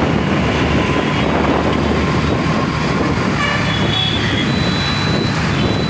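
Steady motorcycle engine and wind and road noise while riding through city traffic, with a vehicle horn tooting briefly about three to four seconds in.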